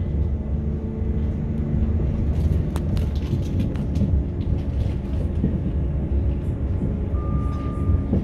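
Running noise of a moving passenger train heard from inside the carriage: a steady low rumble, with a cluster of sharp clicks and clacks about two to four seconds in and a brief thin high tone near the end.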